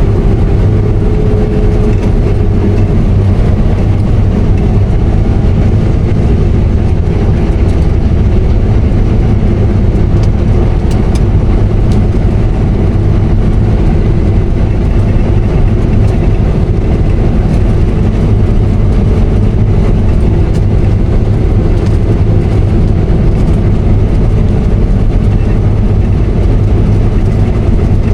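Combine harvester running while cutting wheat: a loud, steady drone of engine and machinery with a strong low hum.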